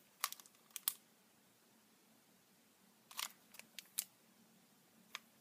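Small handling clicks and taps from a compact sticky-note pad and its packaging being turned over in the hands: a cluster in the first second, another about three seconds in, and a single click near the end.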